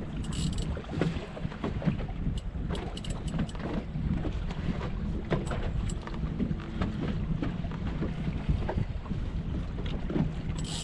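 Outboard motor idling steadily, with wind buffeting the microphone and scattered small clicks and knocks.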